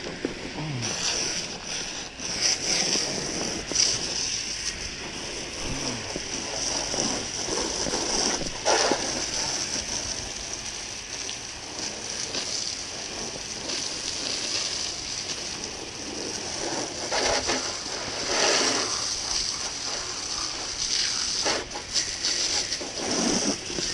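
A garden hose spray nozzle jets water onto the hull of an aluminum Lund boat and its trailer. It makes a steady hiss with irregular louder splashes as the stream sweeps across the metal.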